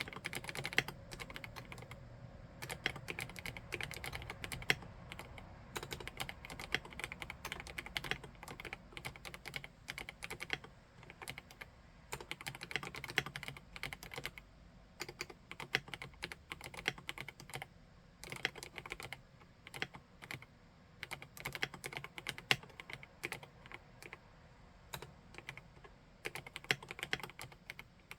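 Typing on a PK x BIOI Command 65 custom mechanical keyboard with SP-Star RedBlue switches: a steady stream of key clacks in runs, easing off briefly a few times.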